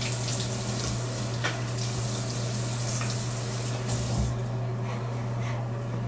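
Tap water running into a sink during handwashing, with a steady low hum underneath. The water hiss drops away about four seconds in, as if the tap is shut off.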